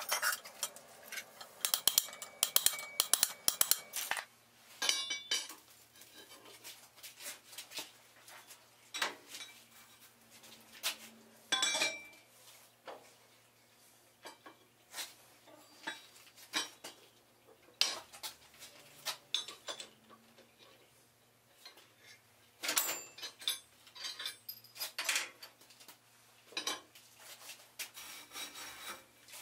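Heavy steel bar stock clanking and clinking against the anvil and a bending jig as it is handled and bent: a dense run of metal clanks for the first few seconds, then scattered single clinks, over a faint steady hum.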